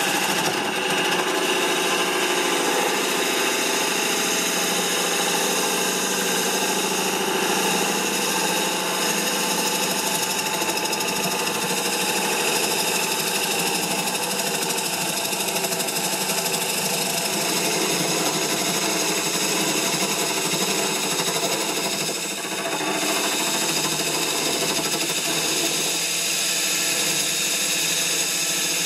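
Bowl gouge cutting the inside of a dry, hard ash blank spinning on a Record Power Coronet Herald wood lathe at 800 rpm: a steady scraping hiss of the cut over the running lathe, with a brief lull about 22 seconds in.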